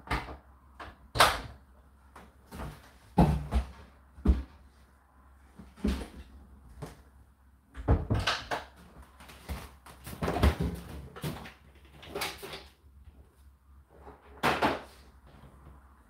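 Irregular knocks and clunks, some sharp, like cupboard doors or objects being handled, spaced a second or more apart over a faint low hum.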